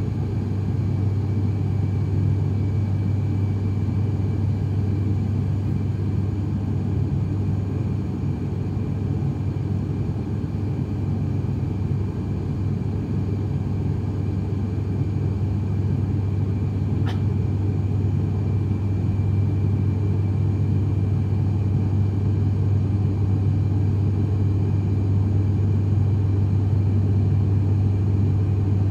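Cabin noise of an ATR 72-500 in flight, heard from a window seat beside the engine: its Pratt & Whitney PW127 turboprops and six-blade propellers make a steady low drone over a rush of air, growing a little louder in the second half. A faint click sounds once, a little past the middle.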